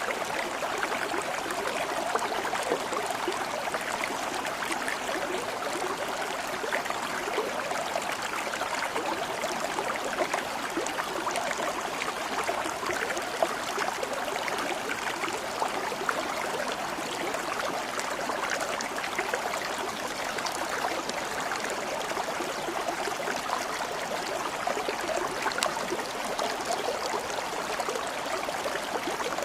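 A stream of water flowing steadily and evenly, with a constant fine trickling.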